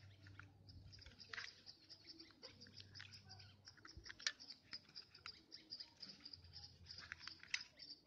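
Faint handling sounds as a TV remote control and its AA batteries are handled: scattered small clicks and taps, about three of them a little louder, at roughly a second and a half in, in the middle and near the end.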